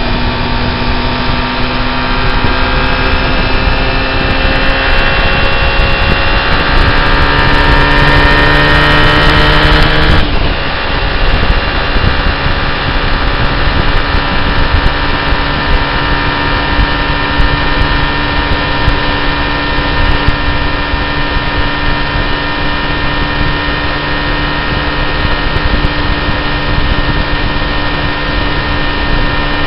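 Car engine and tyre noise heard from inside the cabin. The engine note climbs as the car accelerates, drops sharply at an upshift about ten seconds in, then stays steady while cruising.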